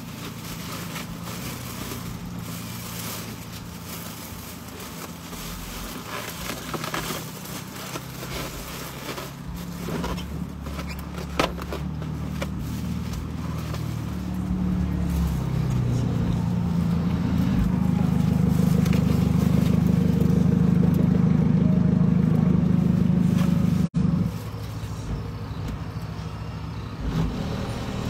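A vehicle's engine running, heard from inside the cabin as a low hum that swells louder about halfway through, holds, then drops off sharply near the end. Occasional rustling and crinkling of paper food packaging can be heard.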